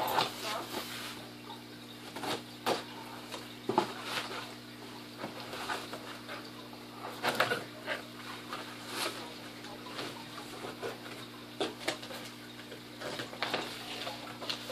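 Scissors cutting and scraping at the packing tape of a cardboard shipping box, with irregular scrapes, clicks and rustles of cardboard and paper as the flaps are pulled open. A faint steady hum lies underneath.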